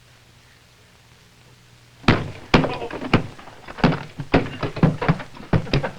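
Hand puppets scuffling on a wooden puppet stage: an irregular run of sharp knocks and thuds begins about two seconds in, several a second, over a faint mains hum.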